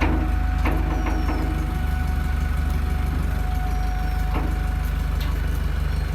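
Heavy engine running steadily at low speed with a deep, evenly pulsing rumble, a steady thin whine over it, and a few faint knocks.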